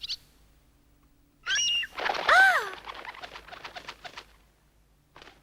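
Cartoon young birds taking flight. A quick run of chirps comes about one and a half seconds in, then a louder single call that rises and falls, then a rapid flutter of flapping wings.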